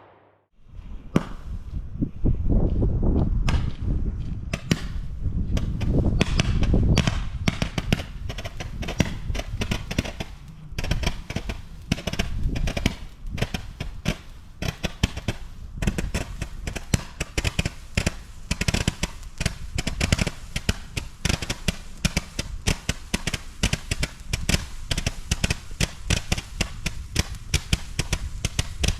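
Nico Highway 180 firework battery firing. Heavy bangs come thick and fast for the first several seconds, then it settles into a rapid, unbroken string of sharp cracks, many a second.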